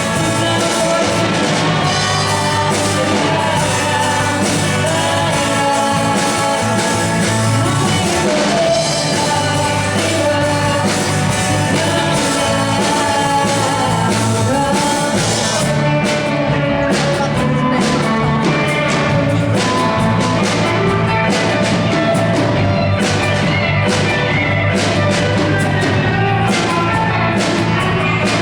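A rock band playing live, with singing over guitar. A sharper, steady beat comes in about halfway through.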